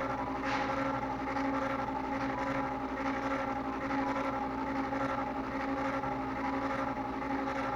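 Mini CNC machine running a PCB job. Its motors give a steady whine of several fixed tones, with a faint regular pulsing above it.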